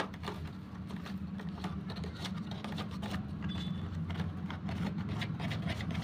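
A toy RC car's plastic pistol-grip remote control being worked loose from the clips of its cardboard display box: scattered small plastic clicks and cardboard scrapes, over a steady low hum.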